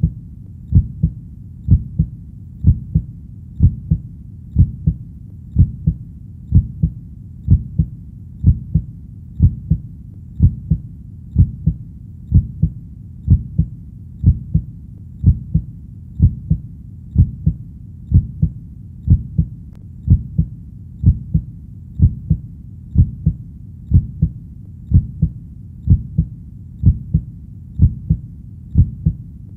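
Heartbeat sound: a steady, slow rhythm of low double thumps, lub-dub, at about one beat a second.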